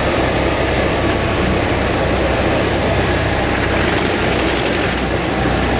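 Cessna 172's single piston engine and propeller running steadily during landing, heard from inside the cabin as an even, loud noise over a low hum.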